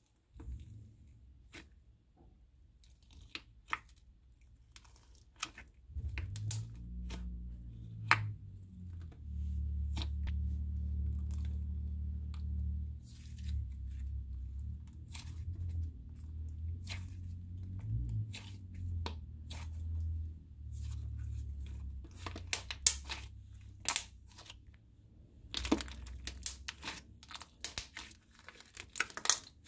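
Thick clay slime with sprinkles being mixed by hand: stretched, torn apart and pressed, giving soft tearing sounds and many scattered sharp pops and clicks that come thicker near the end. A low rumble runs under the middle stretch.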